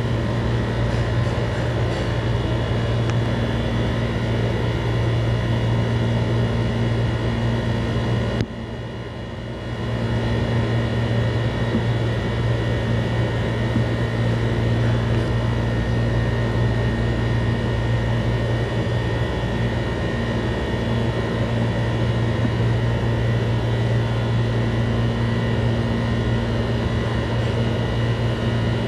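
A steady mechanical hum with a strong low drone and several fainter steady higher tones. About eight seconds in it drops suddenly and builds back up over a second or so.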